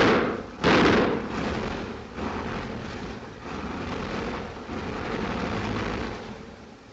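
Wellington bomber's engines droning in flight as a film sound effect, with the port engine packing up. Two loud bursts of noise come in the first second, then the drone goes on as a steady rush that wavers and fades toward the end.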